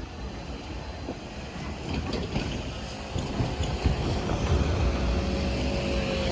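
Nankai Line electric train passing close by: a heavy wheel-on-rail rumble with scattered clacks, growing louder after about two seconds.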